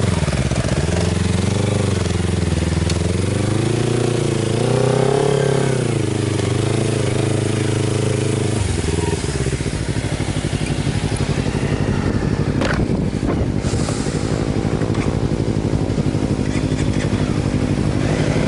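Motorcycle engine running while riding over loose volcanic sand, its revs rising and falling repeatedly. About eight seconds in the sound changes abruptly to a steadier, rapidly pulsing engine note.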